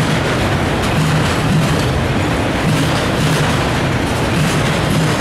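Norfolk Southern autorack freight cars rolling past at close range: a loud, steady rumble of steel wheels on the rails.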